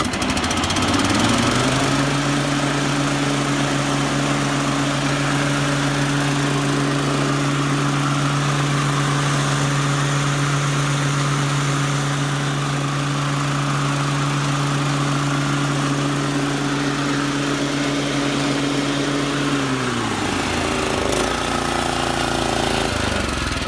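Kawasaki FJ180V single-cylinder engine of an Exmark 30-inch commercial walk-behind mower running with the blade engaged. It speeds up over the first couple of seconds, runs steadily at high speed, then slows down about 20 seconds in.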